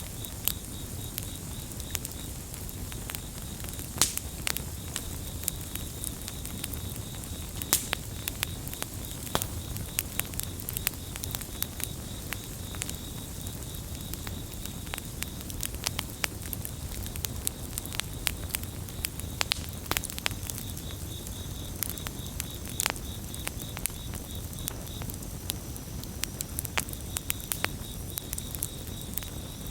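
Campfire burning with irregular wood crackles and pops, a few sharper snaps standing out, over a low steady rumble. Crickets chirp in a fast pulsing trill behind it, dropping out for several seconds midway.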